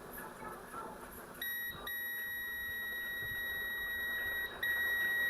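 Digital multimeter's continuity beeper sounding a steady high beep, starting about a second and a half in and breaking off briefly twice. The beep means the newly bridged fuse line has continuity.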